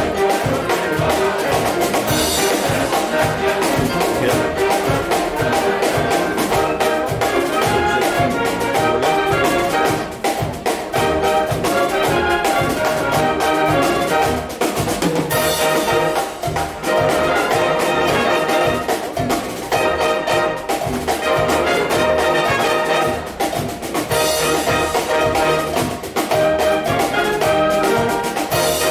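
Concert wind band playing a Cuban-style piece, brass to the fore over a steady percussion beat.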